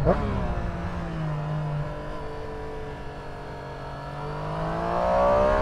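Triumph Street Triple 765 R's inline three-cylinder engine heard from the saddle. Its revs fall away on a closed throttle through the first half, then climb steadily again from about four seconds in as the bike accelerates out of a bend.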